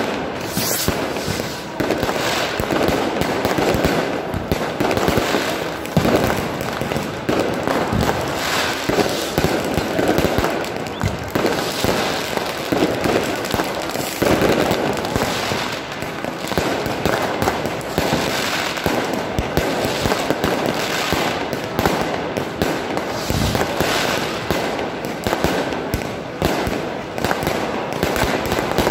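Aerial fireworks bursting in a continuous barrage: many overlapping bangs and crackles with no pause.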